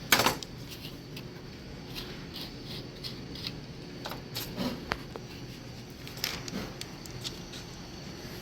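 Scattered light clicks and taps of paint containers and a mixing cup being handled while clear, hardener and reducer are measured out, with a sharp click right at the start.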